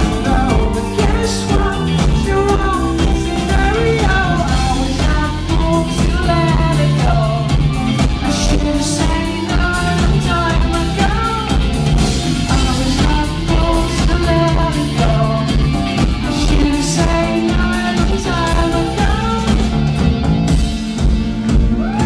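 Live pop-rock band playing: a male lead vocal sings over electric guitar and a drum kit with a steady beat.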